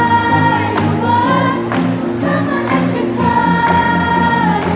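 Children's choir singing a pop song over a backing track with a steady beat of about one stroke a second, holding a long note twice.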